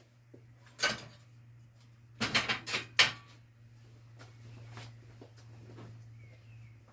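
Metal clanks and knocks from equipment being handled: one knock about a second in, then a quick cluster of clatters around two to three seconds in, over a steady low hum.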